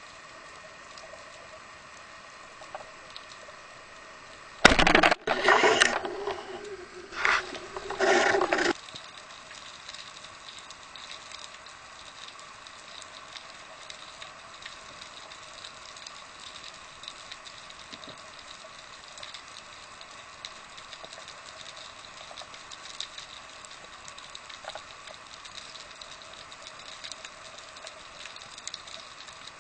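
Underwater ambience: a steady faint crackle of small clicks, broken about five seconds in by a cluster of loud rushing noises that stop about nine seconds in.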